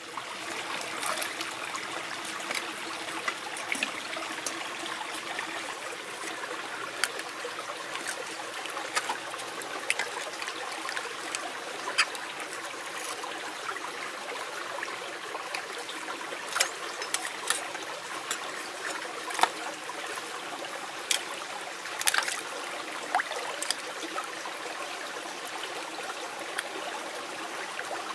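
Shallow stream trickling steadily over stones, with a dozen or so sharp clicks and taps of oyster shell against a steel cleaver as a large oyster is pried open in the water.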